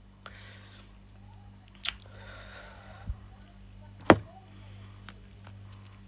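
A woman smoking a cigarette: two short breathy puffs or exhales, and a few sharp clicks and taps, the sharpest about four seconds in, over a steady low hum.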